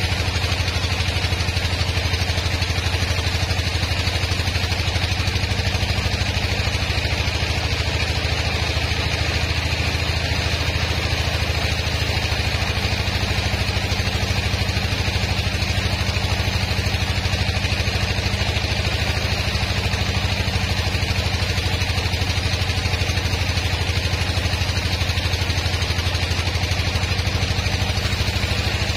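Band sawmill running steadily, its motor giving a constant low hum while the band blade saws lengthwise through a large log, with a steady hiss from the cut.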